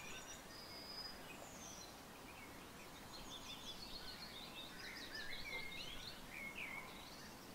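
Wild birds singing: a faint stream of high chirps and short warbling phrases, busiest in the middle, over a steady low background hiss.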